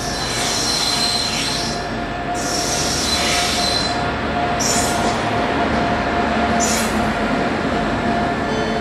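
Electric-hauled passenger train rolling past on the next track: a steady rumble of wheels on rail under a steady whine. Four separate bursts of high wheel screeching come in the first seven seconds.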